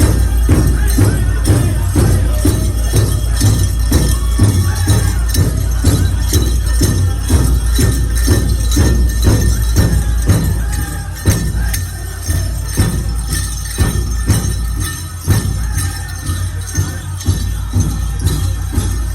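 Powwow drumming: a steady, even drum beat of about three strokes a second, with metal jingles shaking along with it.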